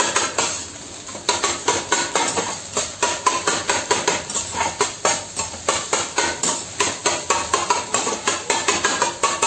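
Metal spatula repeatedly tapping and scraping against a frying pan as scrambled eggs are chopped and stirred, in quick strokes several a second, with a short pause near the start.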